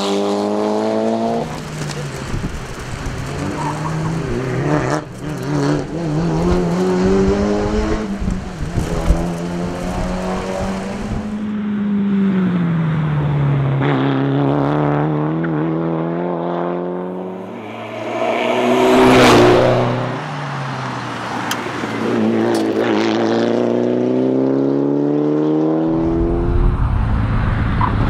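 Mitsubishi Lancer Evolution IX RS's turbocharged four-cylinder engine revving hard through the gears under full acceleration, the pitch climbing and dropping back with each shift. About two-thirds of the way through there is a louder rise and fall.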